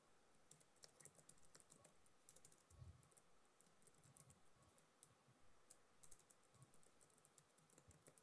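Near silence, with faint, irregular computer-keyboard typing clicks.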